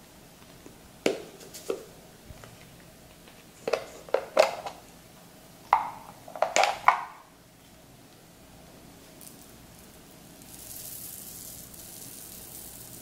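Clear slime with foam beads mixed in being squeezed and stretched, crackling and popping in several short clusters. A soft hiss follows near the end.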